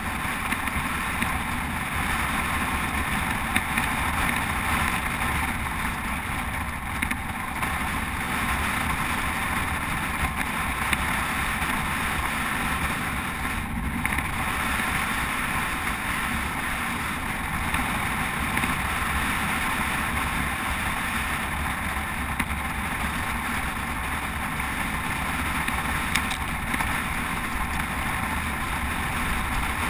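Steady wind rushing over a camera mounted on a road bike at speed, with rolling tyre and road rumble.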